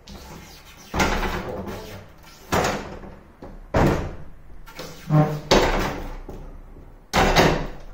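A series of loud knocks and clatters, about six of them spread over several seconds, each dying away quickly.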